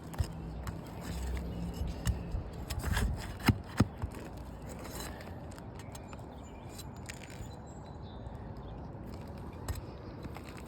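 Scraping and rustling with a few sharp clicks and snaps, the loudest two close together about three and a half seconds in, as asphalt roof shingles are worked loose to break their seal.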